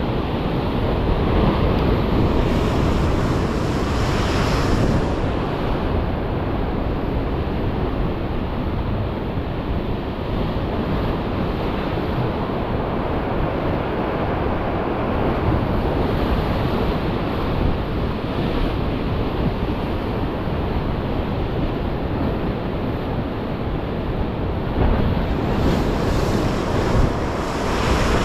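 Rough surf breaking and washing over coastal rocks, a steady rush of churning water, with wind buffeting the microphone.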